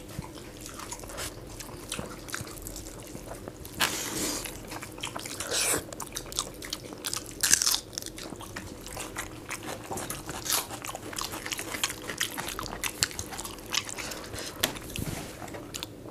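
Two people eating rice with egg masala and dal by hand: close chewing and wet mouth sounds picked up by a clip-on microphone, with a few louder bites about four, six and seven and a half seconds in.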